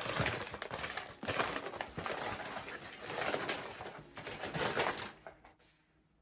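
Packing wrap crinkling and rustling as a wrapped crystal specimen is unwrapped by hand, dying away about five seconds in.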